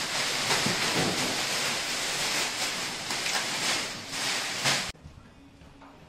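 Crackling rustle of a plastic dust sheet being gathered up and carried, a dense, rain-like crinkle that cuts off abruptly about five seconds in.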